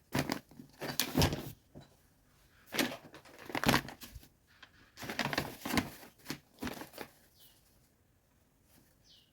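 Crinkling and rustling of something being handled, in three spells of a second or so each, then a quiet lull with two short high chirps, one just after seven seconds in and one near the end.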